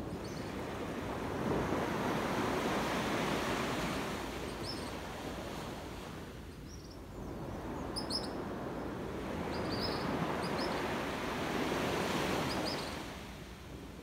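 Small waves washing up on a sandy beach: two long swells of surf that build and fade away, with a few short, high chirps over them.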